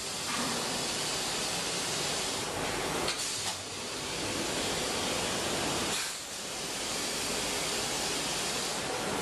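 Jets of a milk-can washing machine hissing steadily as upturned milk cans pass over them on a chain conveyor. The hiss dips briefly twice.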